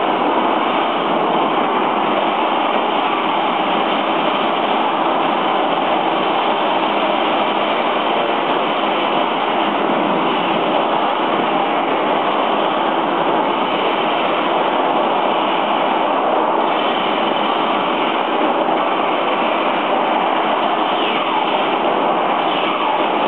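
Steady engine-like running noise from radio-controlled model military vehicles and landing craft, continuous and even in level.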